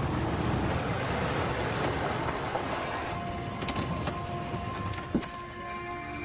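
Steady car noise from a vehicle driving, heard as a passenger would. Held musical tones fade in about halfway, and there is a sharp click about five seconds in.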